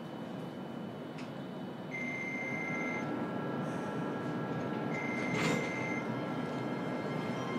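Running sound heard inside a JR Kyushu 303 series EMU motor car as the train gets under way. Steady high electronic tones from the traction inverter come in about two seconds in over the running noise, and a single knock sounds about five and a half seconds in.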